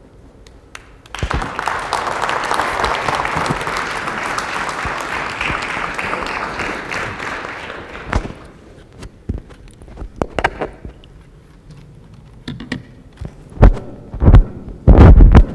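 Audience applauding for several seconds, then fading out. Near the end come several loud thumps and rustles of a lapel microphone being handled and clipped onto a tie.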